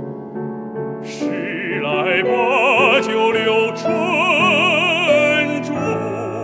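A baritone singing a sustained operatic-style phrase with wide vibrato over instrumental accompaniment. The voice enters about two seconds in, and the accompaniment plays on alone near the end.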